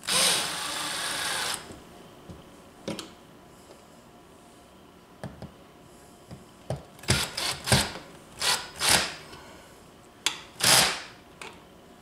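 Cordless drill/driver driving a wall switch's mounting screws into the switch box. It runs steadily for about a second and a half at the start, then gives a series of short trigger bursts near the end as the screws are snugged down.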